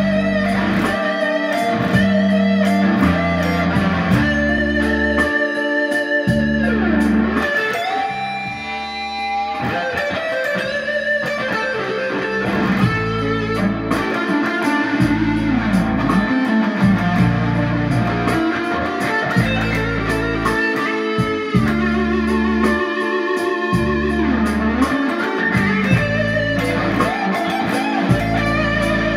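Gibson Les Paul Studio electric guitar playing fast blues lead lines over a backing track with a bass line.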